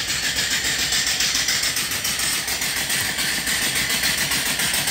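Small homemade vertical steam engine running smoothly under steam: a steady hiss of exhaust steam with a rapid, even beat.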